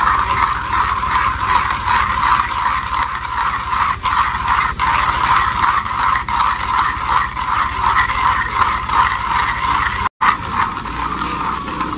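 Hand coffee grinder being cranked, crunching light-roast coffee beans at a medium-coarse setting, a steady rhythmic grinding.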